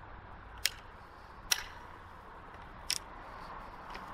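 Sharp metallic clicks from the action of a Werndl Model 1867/77 rifle being handled, its hammer and rotating drum breechblock: three clicks about a second apart, the third doubled, and a fainter one near the end.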